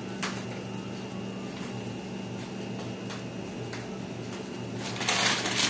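Pot of noodle-soup broth at a rolling boil, bubbling steadily over a low steady hum. Near the end, louder crinkling of the plastic instant-noodle packet being handled.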